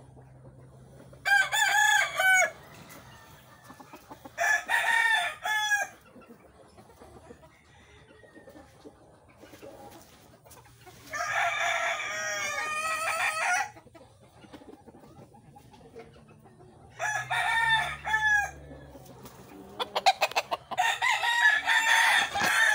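Gamefowl roosters crowing, about five long crows a few seconds apart, the longest near the middle.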